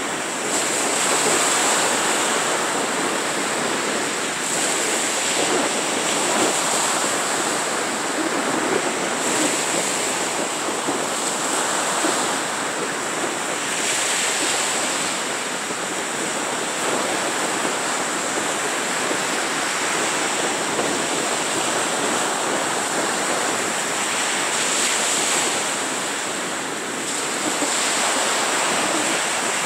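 Small waves breaking and washing up a sandy beach: a continuous wash of surf that swells and eases every few seconds.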